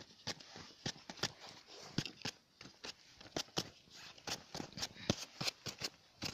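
Small campfire of damp wood and roots crackling, with irregular sharp pops and snaps several times a second.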